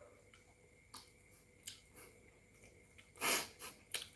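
Quiet room with a few faint clicks, and a man's short breath out through the nose about three seconds in, with a smaller one just after.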